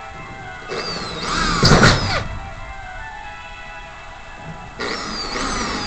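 Hand drill boring into a spandrel ceiling panel in two bursts, one about a second in and another near the end. Its whine drops in pitch as the bit bites into the panel.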